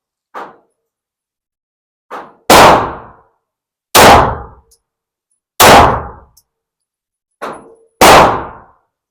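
Four loud pistol shots at uneven intervals, each with a short ringing tail, with three fainter shots in between.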